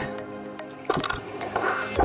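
Background music, with a light click from the paint spray gun being handled about a second in and a short hiss near the end.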